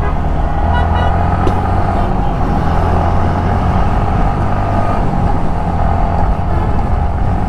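Yamaha motorcycle engine running steadily at cruising speed, heard from the rider's seat together with wind and road noise.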